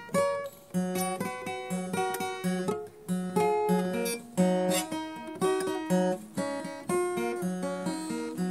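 Acoustic guitar music: plucked and strummed notes in a steady rhythm, with a low note that keeps coming back under a melody.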